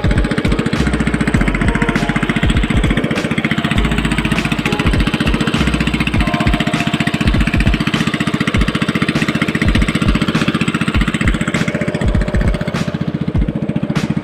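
Small engine of a motorised wooden outrigger boat running steadily under way, with a fast, even firing beat.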